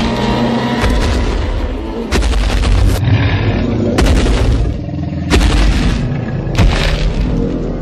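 Dramatic cinematic background music built on heavy booming hits, which land roughly every second or so over a dense low rumble.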